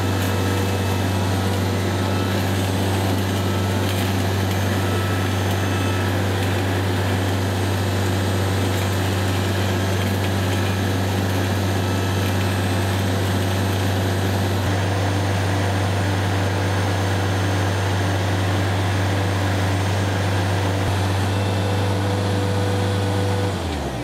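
Skid-steer loader engine running steadily under load, powering a hydraulic helical-pile drive head that is screwing a steel helical pile into the ground. Near the end the engine slows, falling in pitch, and drops off as the drive stops.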